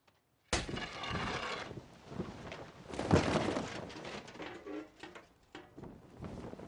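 Heavy cloth banner falling and hitting the ground with a sudden rushing flap about half a second in, followed by more flapping and thuds, the loudest about three seconds in.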